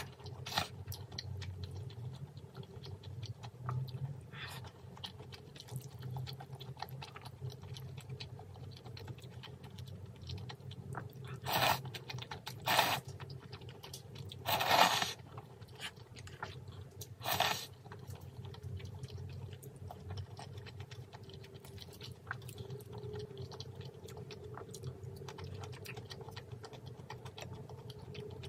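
Close-up eating sounds of a person eating noodles: soft chewing throughout, with four short, louder slurps in the middle.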